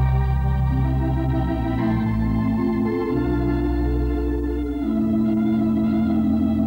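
Organ music playing slow held chords over a sustained bass, the chords changing every second or so.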